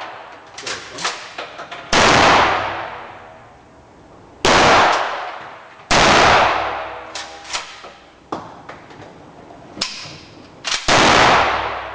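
Shotgun shots fired one at a time: four loud blasts, each followed by a long echoing decay, with fainter sharp clicks and knocks between them.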